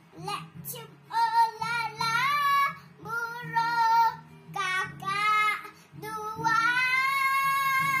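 A young girl singing a children's song to acoustic guitar accompaniment, in short phrases, then one long held note near the end.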